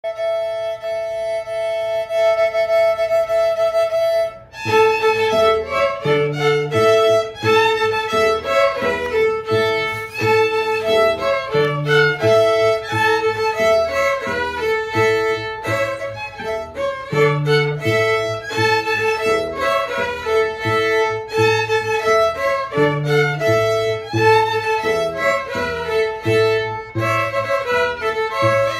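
Children's string quartet of violins and cello playing. A held two-note chord sounds for about four seconds, then the group launches into a rhythmic piece with a bowed cello bass line under the violins.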